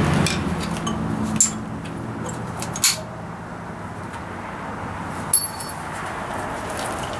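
Steel expansion tank being handled and shifted on a wooden stump: a few sharp knocks and a light metallic clink against a steady background rumble, with a low hum fading out over the first few seconds.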